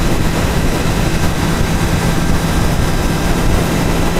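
2013 Triumph Daytona 675R's three-cylinder engine running at a steady cruise, under steady wind rush on the helmet-mounted microphone.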